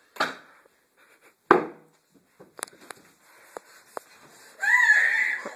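Hard smacks of objects being struck in an angry outburst: two loud blows in the first second and a half, then a few lighter knocks. Near the end comes a high, wavering cry.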